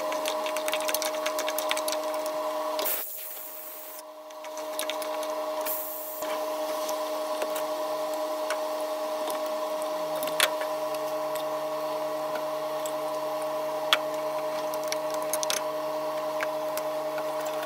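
Bottle gourd and vegetables sautéing in an aluminium pot, with scattered crackles of sizzling over a steady droning hum. The hum drops away for a few seconds about three seconds in, then comes back.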